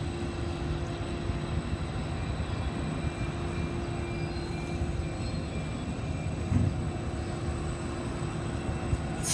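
Distant 81 class diesel-electric locomotives hauling a freight train toward the listener, a steady low engine drone with a faint tone held throughout. One brief thud about six and a half seconds in.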